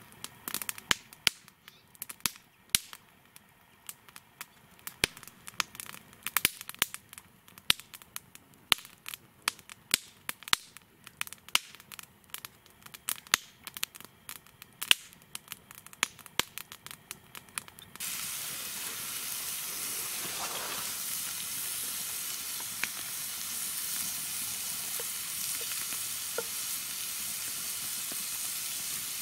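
Food frying in hot oil in a pan: scattered sharp pops and crackles over a quiet background for most of the first two-thirds, then an abrupt change to a steady, louder sizzle.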